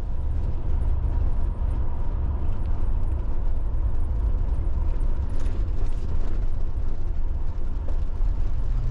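Steady low rumble of a vehicle's engine and tyres heard from inside the cabin while driving.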